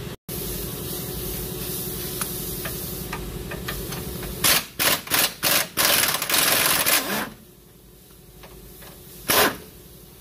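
A pneumatic impact wrench is loosening a 17 mm bolt on the front lower control arm. It fires in four quick bursts and then one longer run, with one more brief burst near the end. A steady hum runs under the first few seconds, before the wrench starts.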